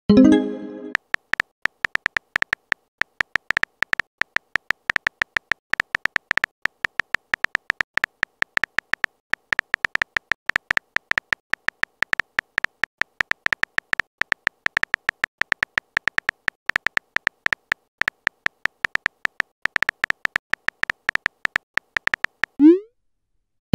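Phone keyboard typing clicks from a texting-app animation: a long run of quick, uneven, high ticks as a message is typed out letter by letter. A pitched pop opens the run. A short rising whoosh near the end is the message-send sound.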